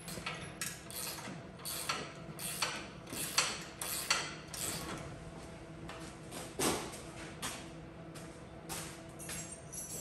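Irregular metallic clinks and knocks of steel sawmill parts and hardware being handled and fitted during assembly, over a faint steady hum.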